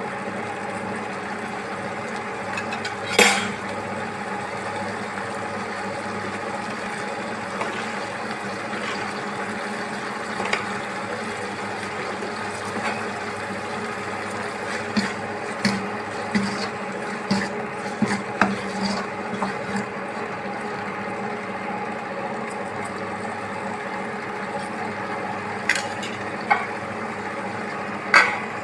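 Cooking sounds: a steady hiss under the clinks and knocks of a utensil against a cooking pot. There is one sharp knock about three seconds in and a run of light knocks in the middle.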